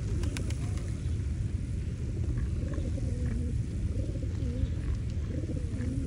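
A flock of feral rock pigeons cooing, many low wavering coos overlapping, over a steady low rumble.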